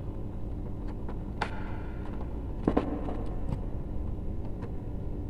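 Small clicks and taps of electrical wires and a plastic conduit junction box being handled while the wires are joined, with one louder knock a little past the middle. A steady low rumble runs underneath.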